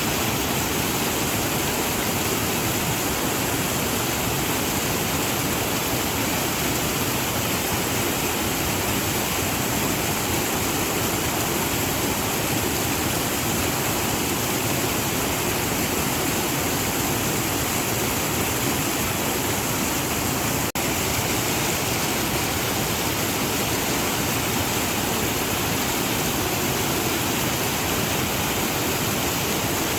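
Waterfall: a steady, even rush of falling water, with a split-second dip in level about two-thirds of the way through.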